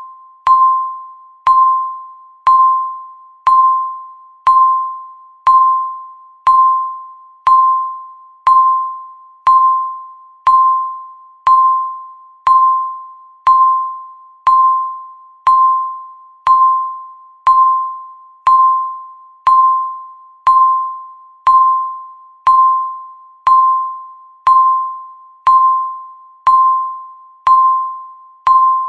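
Electronic countdown-timer beep repeating once a second: a single high tone that strikes sharply and fades away before the next one.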